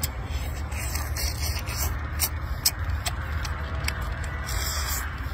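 Cooked shell-on shrimp being peeled and chewed: a run of short, crisp clicks and crackles of shell, over a steady low rumble.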